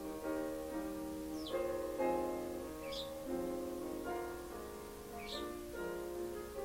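Piano being played slowly in chords, with a pet sparrow giving three short, high chirps over it.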